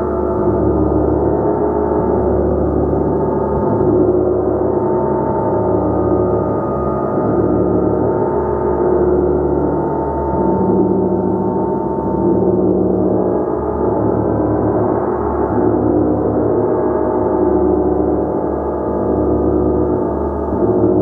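Gong played continuously: a loud, dense wash of many overlapping ringing tones that swells and ebbs gently without a break.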